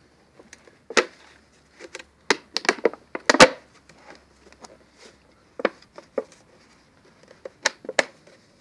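Plastic clicking and creaking as the neck of an empty plastic bottle is forced through a tight-fitting hole in a plastic bucket lid. The clicks and knocks are irregular, with the loudest a little over three seconds in.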